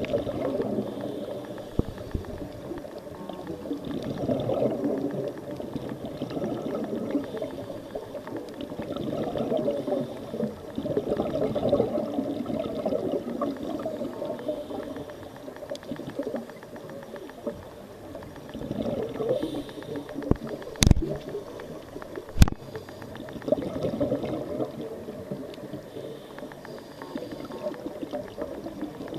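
Scuba regulators underwater: exhaled air bubbling out in rushes every few seconds as the divers breathe. Two sharp clicks come a second and a half apart about two-thirds of the way through.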